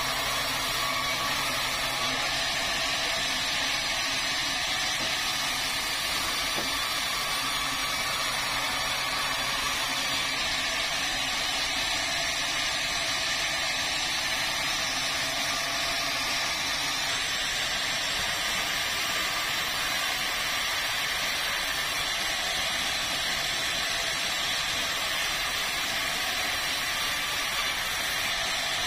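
Two-stroke chainsaw running steadily under load, cutting through a log with no change in pitch or level.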